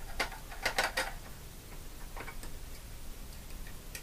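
Sharp little clicks and crackles at uneven intervals while a header pin is being soldered: the rosin-core flux in the lead-free solder spitting as it melts under the iron. Most come in a quick bunch in the first second, with a few more about two seconds in and one near the end.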